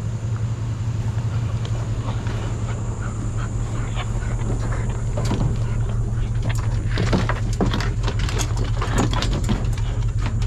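Pickup truck engine idling steadily, with a run of sharp clicks and clatters starting about five seconds in.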